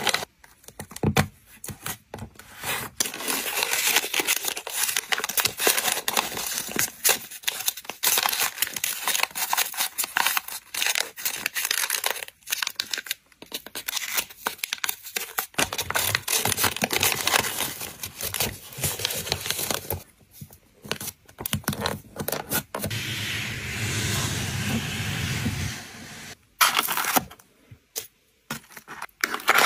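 Close-miked crinkling and rustling of printed wrapping paper and a clear plastic bag as a small press-on nail case is wrapped and bagged, with frequent small taps and clicks from handling. About 23 seconds in, a smoother rubbing sound runs for a few seconds, then a few sharp taps come near the end.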